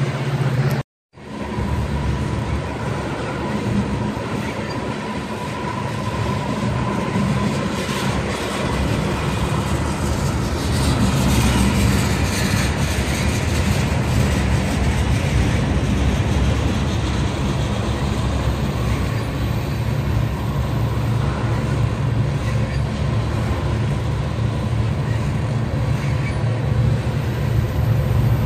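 Norfolk Southern freight train rolling past on the tracks, a steady rumble of wheels and cars that drops out for a moment about a second in and then continues unbroken.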